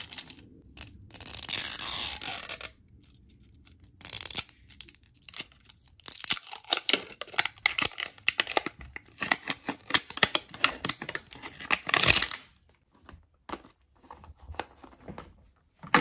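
Plastic wrapping torn and crinkled off a Toy Mini Brands capsule ball, with a long stretch of dense crackling from about six to twelve seconds. Scattered plastic clicks follow, and a sharp snap near the end as the plastic ball halves come apart.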